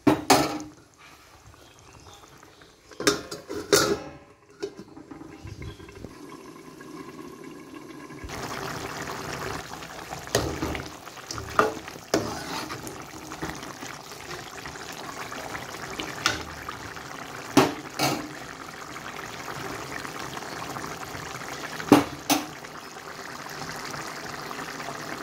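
A metal spoon stirring chicken curry in a metal pot, knocking sharply against the pot about ten times at uneven intervals. A steady hiss comes in suddenly about a third of the way through and carries on under the knocks.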